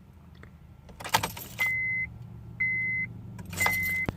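Keys jangling in the ignition of a 2004 Honda Accord as the key is turned, then the dashboard chime beeping three times, about once a second, each beep half a second long. No starter or engine sound follows: a no-crank, no-start fault, which the uploader later traced to the neutral safety switch.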